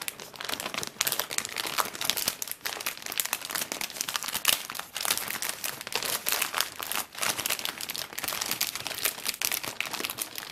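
Plastic wrapper of a trading-card starter pack crinkling and crackling continuously as hands pull it open and peel it off.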